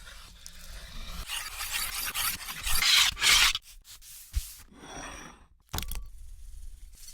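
Rubbing and scraping noises from food being handled in meat preparation, in several swelling strokes, loudest about three seconds in, with a sharp knock near the end.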